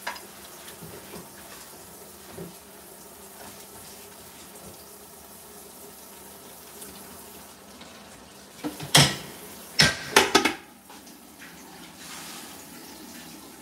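A metal spatula scraping lightly in an aluminium pot over a steady low hiss. A little past the middle come a few loud metal clanks as the pressure-cooker lid is set on and closed.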